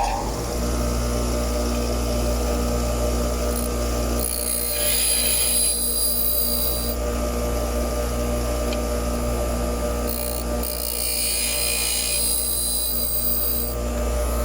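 Grinder motor running steadily while a worn drill bit is sharpened on it, its tip pressed to the wheel in two passes of about three seconds each that add a high hissing grind over the motor hum.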